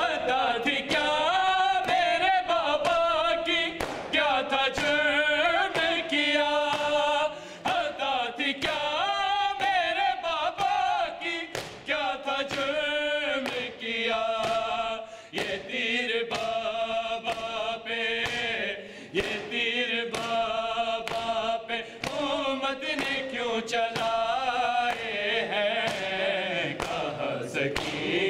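Men chanting an Urdu noha (Shia lament) together. The singing is set to a regular beat of hands striking chests in matam, roughly once a second.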